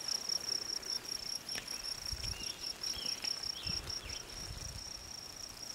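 Insects chirping in a field: a high, even pulsing, about five chirps a second, repeating steadily.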